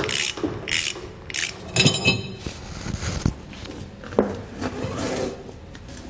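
Underbed spare tire hoist of a 2020 Ram 2500 being cranked down with a long rod through the slot under the tailgate, the winch mechanism ratcheting in repeated clicking strokes that turn more irregular, with rattles and knocks, in the second half.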